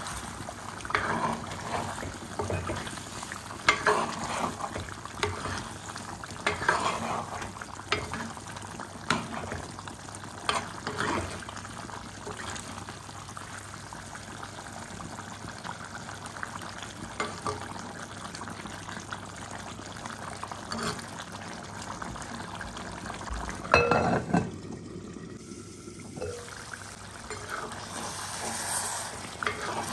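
Steel ladle stirring thick chicken curry in a clay pot, scraping and knocking against the pot at irregular moments, over a steady simmering sizzle. One knock about three-quarters of the way through is louder than the rest.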